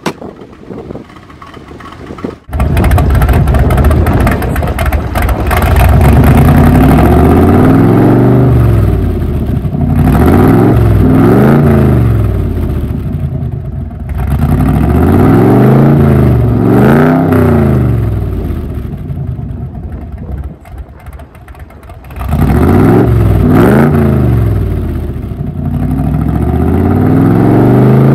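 1978 RAM AC Cobra's engine revving through its side-exit exhaust: quieter at first, then loud from about two and a half seconds in, with four or five blips of the throttle, each rising and falling in pitch, and the engine dropping back toward idle between them.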